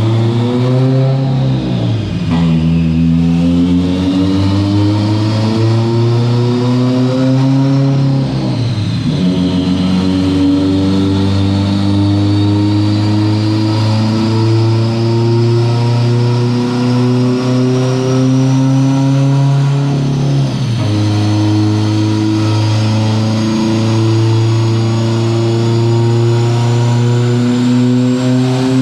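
Turbocharged Subaru STI flat-four engine accelerating hard, its pitch climbing slowly in each gear and dropping sharply at gear changes about 2, 8 and 20 seconds in.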